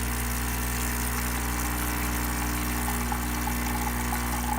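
Breville BES820XL espresso machine's vibratory pump running with a steady hum while dispensing hot water.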